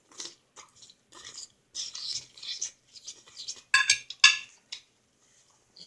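Eating utensil scraping and tapping against a dish in a run of short sounds, then two sharper ringing clinks about four seconds in.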